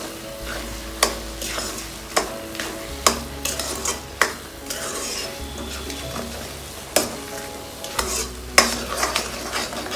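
A spatula stirring and scraping thick grated-carrot halwa in a metal kadhai, with sharp knocks against the pan about every second or so, over a light sizzle from the cooking mixture. The sugar, milk powder, cardamom and dry fruits are being mixed in.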